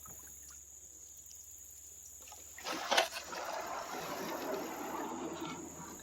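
Canoe hull running aground on a sandbar: a knock about three seconds in, then a couple of seconds of gritty scraping as the hull slides up onto the sand.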